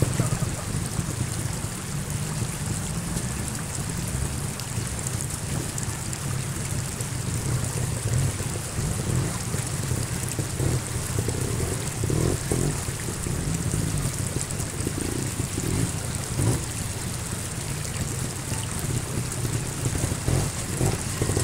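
Steady rush of a shallow woodland stream, with a trials motorcycle engine running at low revs underneath and a few short throttle blips.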